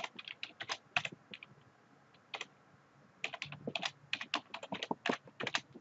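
Typing on a computer keyboard: two runs of quick key clicks with a pause of about a second and a half between them.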